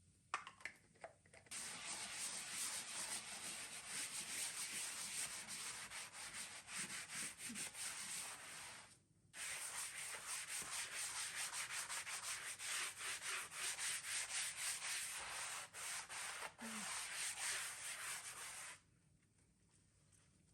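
Rapid back-and-forth scrubbing of a surface, in two long spells with a brief pause near the middle, stopping shortly before the end.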